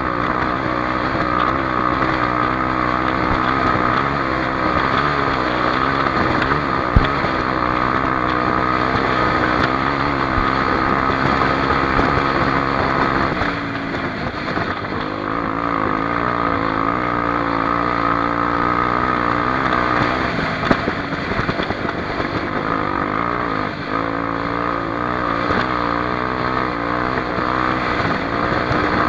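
Honda XR250 Tornado's single-cylinder four-stroke engine running under load while being ridden, its revs rising and falling continually. The revs drop off briefly about halfway through and again a few seconds before the end.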